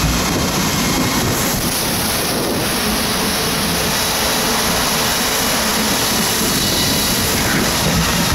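Inflatable tube sliding down a water slide: a loud, steady rush of flowing water.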